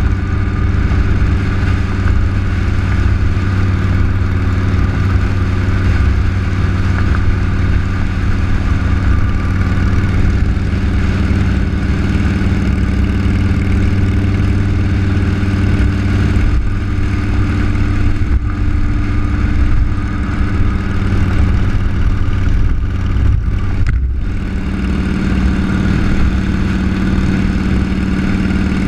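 Vehicle engine running steadily at a constant cruising speed, its note holding one pitch, with a short break in the sound about 24 seconds in and a slightly stronger low note after it.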